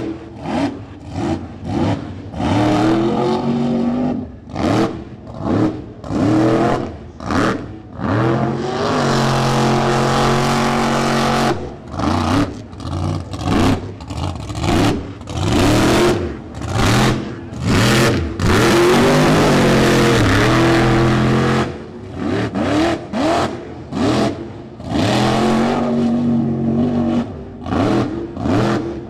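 Mega truck's supercharged alcohol-burning engine revving hard in repeated short throttle bursts, with two longer stretches held at full throttle in the middle, as the tires churn through mud and water.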